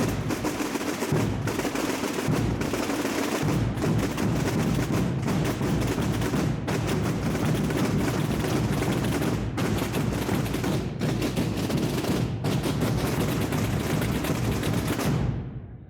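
Massed Holy Week drums and bass drums of a tamborada beating together in a dense, continuous roll with a heavy booming bass, stopping near the end.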